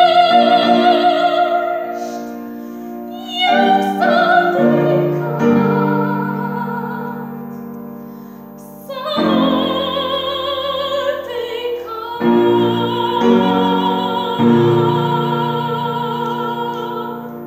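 Classical soprano singing with grand piano accompaniment: long held notes with a wide vibrato over sustained piano chords. The last note is held over a final chord and fades away near the end, closing the song.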